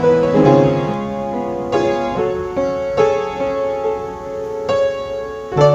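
Piano playing a slow run of sustained chords as the closing postlude after the benediction.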